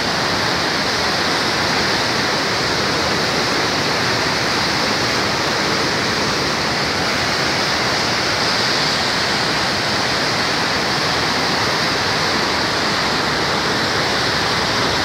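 Steady, loud rushing of the Sapta Koshi River in flood: fast, turbulent floodwater churning past the barrage.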